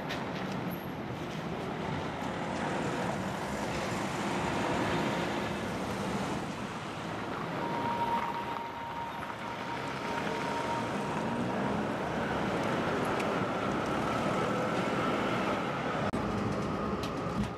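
Vintage tram running along the rails, heard from on board: a steady rumble and rattle of the car in motion. A faint, thin whine comes and goes in the second half.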